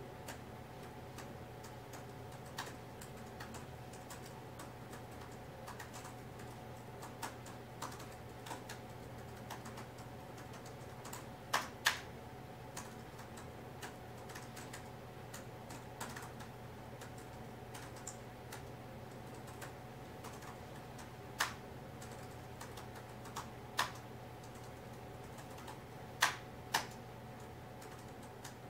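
Typing on a laptop keyboard: irregular light key clicks with a few harder strokes, two of them close together near the end, over a steady low hum.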